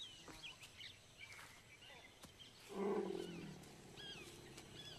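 Asian elephant giving a short, low call about three seconds in, under a second long and trailing off, with faint high chirps scattered around it.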